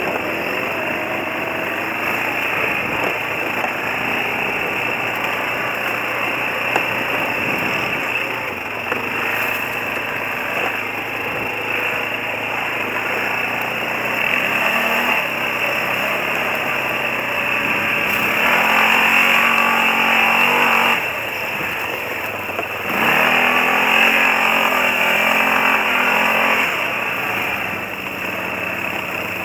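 Quad bike (ATV) engine running while being ridden over rough ground, revs rising and falling, with two spells of harder, louder revving past the middle.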